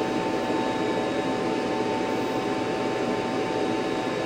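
Mini laser machine running steadily as it starts a job on an iPhone's back glass: an even whirring hum with a steady high whine.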